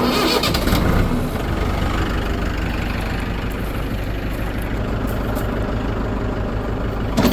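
Tractor engine running at a steady idle while being warmed up, after a louder first second.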